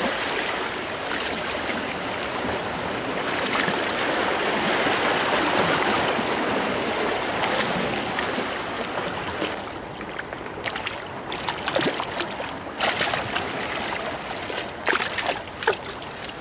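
Sea water splashing as a hooked bluefish thrashes at the surface beside the rocks. A steady rush of water fills the first half, then about ten seconds in it breaks up into separate sharp splashes.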